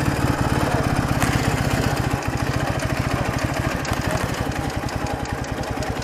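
Ural motorcycle's air-cooled flat-twin engine running steadily at low revs, with an even low pulsing beat.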